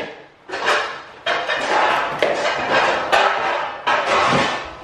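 Packaging being handled and opened on a kitchen counter: several stretches of rustling and crinkling, with a few sharp clicks and knocks.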